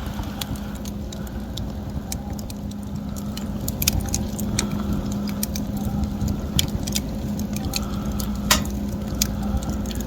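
Wood fire crackling: irregular sharp pops and snaps from the burning wood, with one louder crack near the end, over a steady low rumble.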